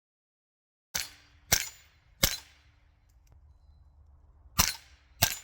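AR-15 rifle with a .22 LR conversion kit firing single shots: three in quick succession starting about a second in, a pause of about two seconds, then two more, with a faint steady hum between them.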